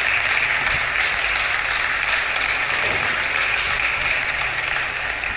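Audience applauding, a steady clapping that eases slightly near the end.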